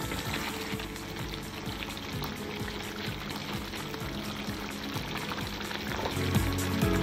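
Thick paneer and potato curry sizzling in a nonstick pan as a wooden spatula stirs through it. Background music runs underneath and grows louder near the end.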